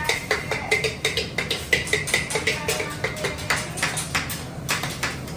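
Rapid metal clicking and clanking of a hibachi chef's spatula and knife against the steel teppanyaki griddle, several strikes a second, over a steady low hum.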